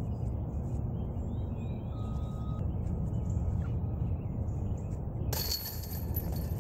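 Low, steady wind rumble on the microphone with a few faint bird chirps. About five seconds in, the metal chains of a disc golf basket start jingling brightly and keep on.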